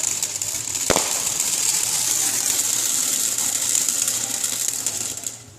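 A firework giving off a loud, steady hiss, with a sharp crack about a second in. The hiss dies away near the end.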